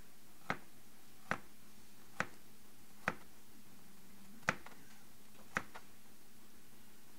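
Kitchen knife slicing garlic cloves thin on a plastic cutting board: six sharp taps of the blade hitting the board, about a second apart.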